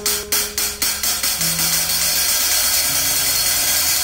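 Hi-hat cymbal played with drumsticks. The strokes come about four a second, speed up over the first second and blur into a continuous shimmer, over a few low held notes.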